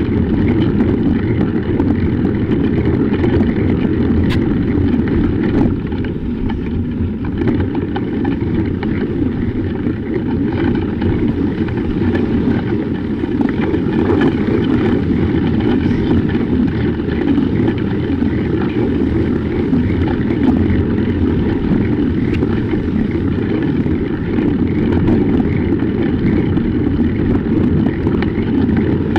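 A bicycle rolling along a snowy road, heard through a camera mounted low on the bike: a steady, loud, deep rushing noise of wind on the microphone and tyres on snow.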